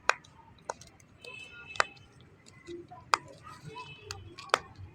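A series of sharp clicks or taps, about five at uneven intervals, with faint softer sounds between them.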